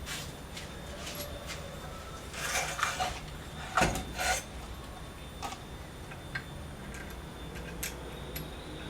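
Scattered knocks and clatter of handled objects. There is a burst of rattling about two and a half seconds in, and the loudest knock comes about four seconds in.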